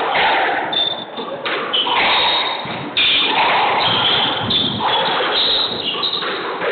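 Squash ball being hit with rackets and thudding off the court walls in a reverberant hall, with short high squeaks of shoes on the hardwood floor.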